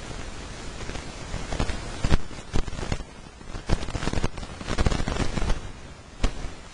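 Irregular crackling and crinkling of a thin white sheet being stretched and handled, in bursts through the middle and with one last crackle near the end.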